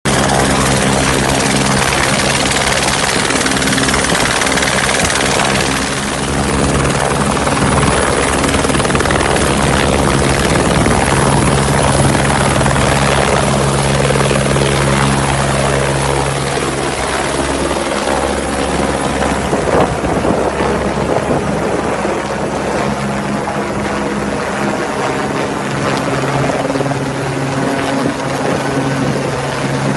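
Helicopter in flight, its rotor and engine making a steady drone with a dense rushing noise.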